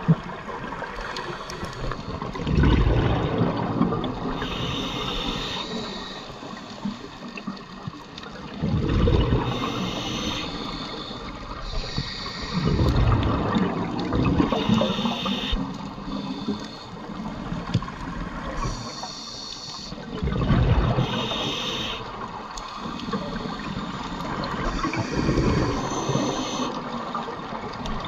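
Scuba diver breathing through a regulator: short hissing inhalations alternating with louder rushing, gurgling bursts of exhaled bubbles, about five breaths, one every four to six seconds.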